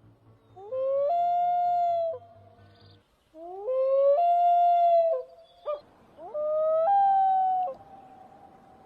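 A loon wailing: three long, eerie calls, each sweeping up and then held with sudden jumps to a higher pitch.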